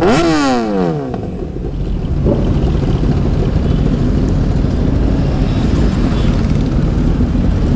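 Sport motorcycle engine revved once right at the start, the pitch sweeping up and dropping back within about a second, then idling with other motorcycle engines; a brief smaller blip of the throttle about two seconds in.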